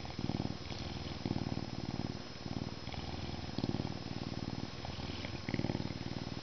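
Lynx purring, a deep rumbling purr that swells louder with each breath about every one and a half to two seconds.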